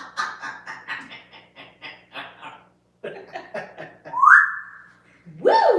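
African grey parrot vocalizing: a rapid run of chattering, chuckle-like clicks at about five a second, then a rising whistle held for a moment, and near the end a loud whistle that swoops up and back down.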